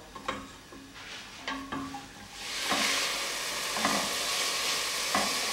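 A wooden spoon stirs diced onion, carrot and celery in a stainless steel pot, with a few light scrapes and taps. About two seconds in, a steady gentle sizzle of the vegetables cooking in oil takes over.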